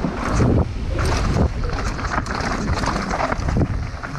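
Wind buffeting the microphone of a camera riding on a downhill mountain bike at speed, mixed with the rush of knobby tyres on a dirt trail and the bike knocking and rattling over bumps.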